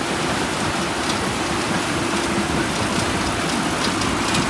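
Floodwater rushing through a sluice gate: a loud, steady, even rush of water.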